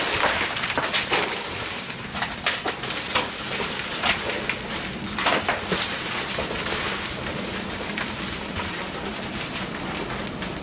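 Metro train car running: a steady rushing noise with frequent irregular clicks and rattles and a low hum.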